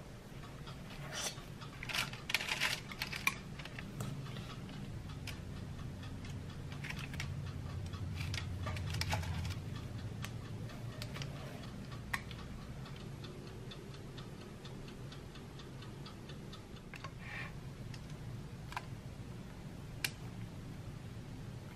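Kitchen utensils clicking and scraping against a stainless steel mixing bowl and a metal baking tray as soft cookie dough is worked, scooped out and pressed. The clicks come irregularly, in small clusters, over a low steady hum that swells for a few seconds near the middle.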